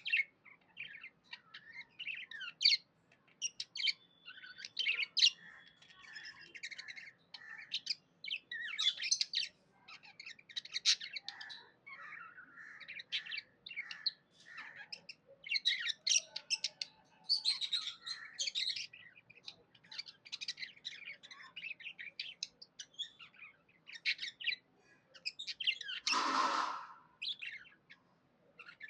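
Pet budgerigars chirping in quick, irregular runs of short high chirps, with one louder, harsher call near the end.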